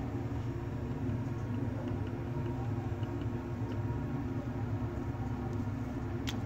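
Steady low mechanical hum of laboratory equipment, with a few faint ticks and a sharp click near the end.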